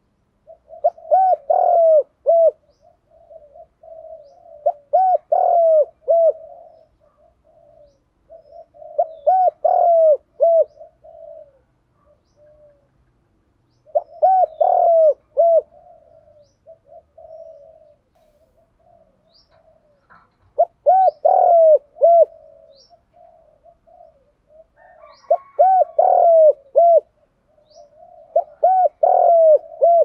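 Spotted dove cooing its song, a phrase of several pitched coos repeated about every four seconds, seven times, with softer cooing between the phrases.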